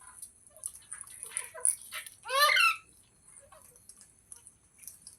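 Pet parrot calling: a string of soft, short squeaky chirps and one louder screech about two and a half seconds in.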